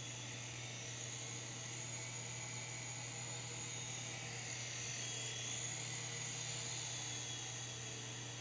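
S107G mini RC helicopter flying, its small electric motors and coaxial rotors making a thin high whine whose pitch wavers and swells slightly midway as the throttle changes. A steady low hum runs underneath.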